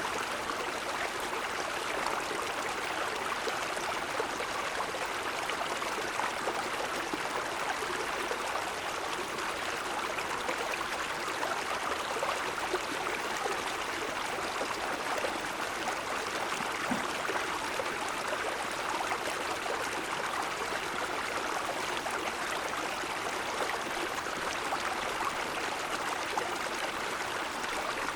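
Mountain stream flowing and splashing over snow-covered stones, a steady even rush of running water.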